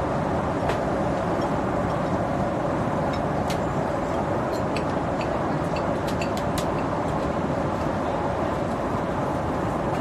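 Steady cabin noise of an airliner in flight, an even rush of engines and airflow, with a few faint clicks in the middle.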